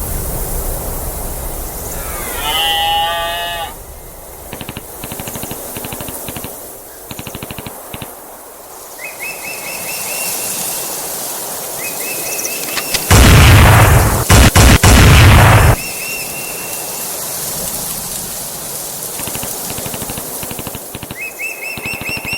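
A string of separate sound effects over a steady background. A short pitched call comes about two seconds in, then fast clicking, then short repeated chirps. The loudest is a noisy burst with rapid sharp cracks lasting about two and a half seconds, past the middle.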